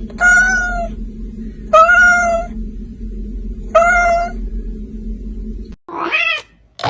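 A cat meowing three times, about two seconds apart, each meow loud and drawn out, over a steady low hum. Near the end come two shorter cat calls, the first rising and falling.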